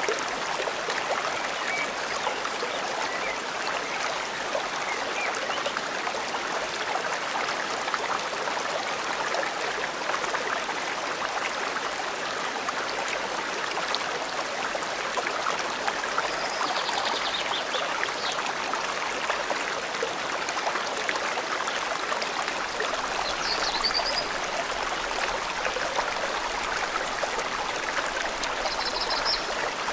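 Forest stream flowing steadily, a constant rushing water sound, with a few brief high bird calls over it around the middle and near the end.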